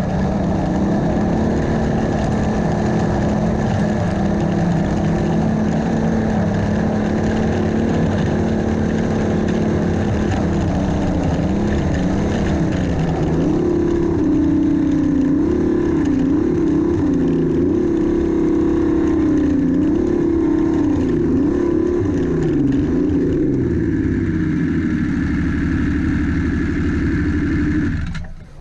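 Turbocharged Yamaha four-stroke three-cylinder snowmobile engine running at a steady speed, then blipped up and down in pitch again and again through the second half. The sound cuts off abruptly near the end.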